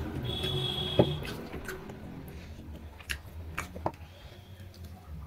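Hand-eating sounds: fingers mixing rice and curry on a plate with soft wet squishing and a few sharp clicks, the loudest about a second in, along with some chewing.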